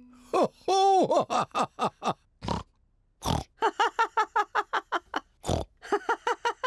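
Cartoon pig voices snorting and laughing: quick runs of short laughs broken by several short snorts.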